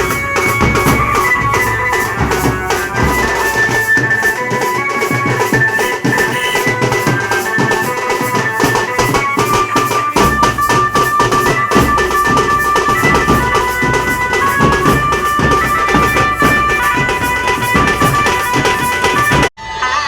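Loud dance music with a steady drum beat and a high melody line. The deep bass drops out from about four seconds in until about ten seconds, and the music cuts off suddenly near the end.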